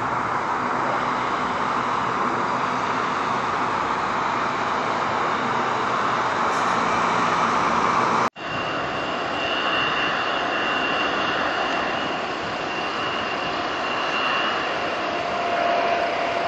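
Steady jet airliner engine noise. About eight seconds in it cuts out for an instant, then resumes as a different jet sound with a thin high whine: an American Airlines McDonnell Douglas MD-80 on final approach.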